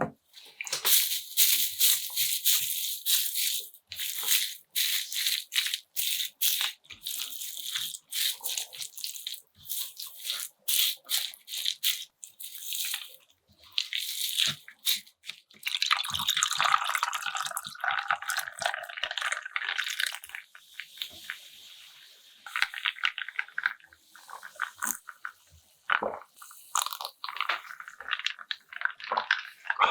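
Close-miked eating sounds: crisp, crackly chewing for about the first half, then wetter, squelchier chewing and mouth sounds from about halfway on.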